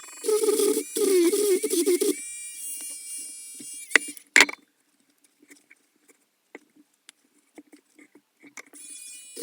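Dremel rotary tool grinding rust and encrustation off an old steel penknife, with the audio sped up. It runs loudly with a high whine, spins down and stops about two seconds in, and a couple of sharp clicks follow. Small scattered ticks fill a quiet stretch, then the whine builds again near the end.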